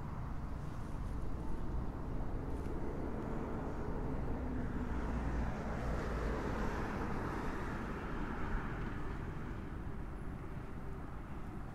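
Outdoor city ambience of sparse traffic: a steady low hum that swells for a few seconds in the middle.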